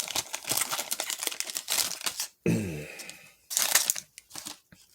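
Foil wrapper of a baseball trading card pack crinkling and tearing as it is handled and opened, with a brief voiced murmur about halfway and a few light clicks near the end.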